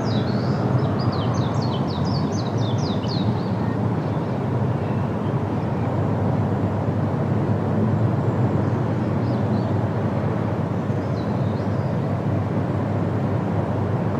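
Steady roar of the Rhine Falls, a large, heavy-flow river waterfall. A small bird sings a quick run of high chirps over it in the first few seconds, with a few fainter chirps later.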